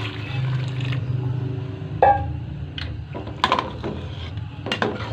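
Water being poured into a metal cooking pot of fried green chickpeas and potatoes, then a slotted ladle stirring and clanking against the pot several times, the first clank the loudest.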